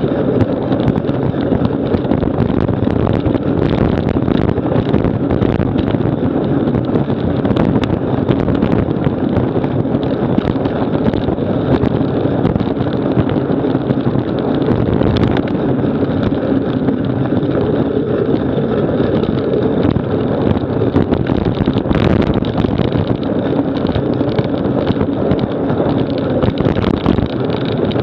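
Steady rushing of wind on the microphone and tyre rumble over a dirt trail at speed, with a low drone underneath and a few short knocks from bumps.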